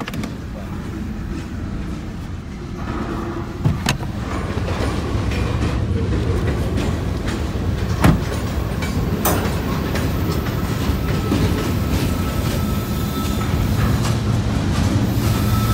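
Freight train of tank cars and covered hoppers rolling past: a steady rumble of wheels on rail that grows slowly louder, with sharp clanks around four, eight and nine seconds in. A thin steady squeal joins in from about ten seconds in.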